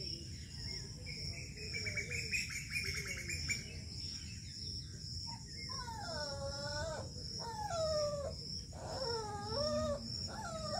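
Steady pulsing insect chirring, with a fast buzzy trill about a second in. In the second half come four falling, wavering animal calls in quick succession.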